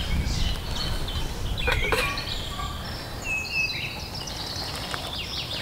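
Songbirds singing in woodland, many short high chirps and whistles, with a few sharp metallic clinks of steel camp cookware about two seconds in.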